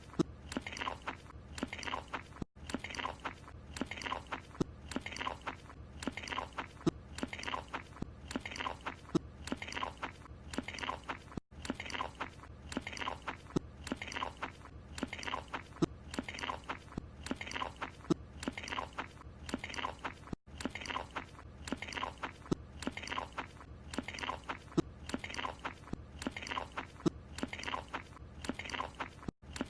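Cartoon croissant-eating sound: mouthy chewing and munching, about two chews a second. It repeats as a loop with a brief gap about every nine seconds.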